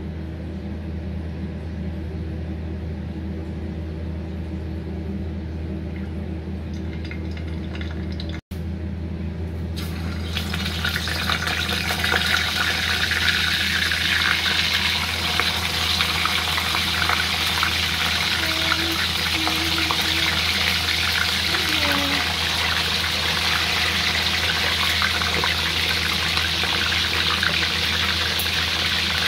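A steady low hum, then from about ten seconds in, galunggong (round scad) frying in hot oil, a loud, steady sizzle and crackle.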